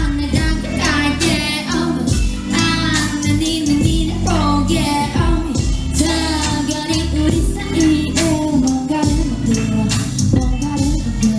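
A pop song performed live with a sung melody over a backing track with a steady beat and bass.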